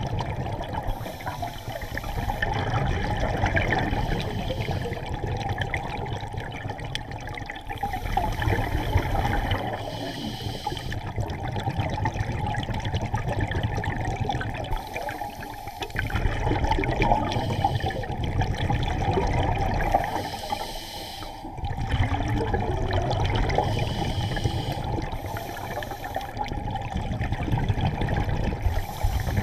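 A scuba diver breathing through a regulator, heard underwater: a short hiss on each inhale and a bubbling rumble on each exhale, repeating every few seconds.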